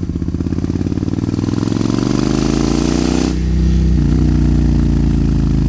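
A 2003 Suzuki Intruder 1400's V-twin engine through Vance & Hines Classic II pipes, accelerating with its pitch climbing for about three seconds. About three seconds in, the pitch drops back a little and the engine keeps pulling, loud and steadier.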